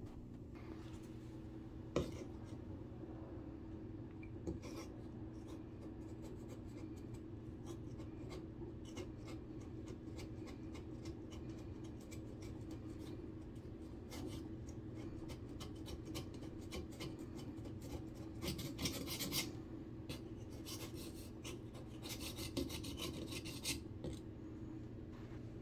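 Razor-blade scraper scratching at a glue-filled hole in drywall, trimming the glue flush: a run of short rasping strokes, busier and louder in two spells in the latter half. A single sharp click about two seconds in.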